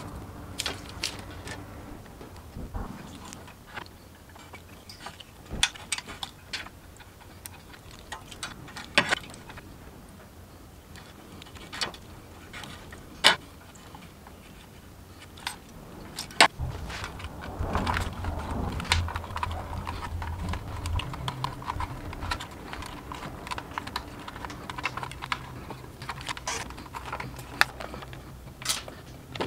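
Small scattered clicks and rattles of hands handling an e-bike conversion kit's cables, plastic connectors and cable ties, with a few sharper snaps. A low steady hum comes in a little past halfway.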